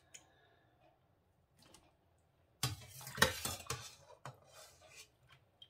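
Metal skimmer knocking and scraping against a stainless steel pot while scooping boiled chicken meatballs out of the water. A single click comes at the start, then a busy run of clinks and scrapes begins about two and a half seconds in, followed by a few lighter knocks.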